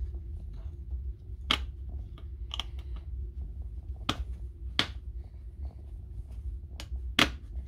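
Sharp small clicks and taps, about five loud ones spread out, with fainter ticks between, as gloved hands handle small parts on the circuit board of an opened cordless tool battery pack. A steady low hum runs underneath.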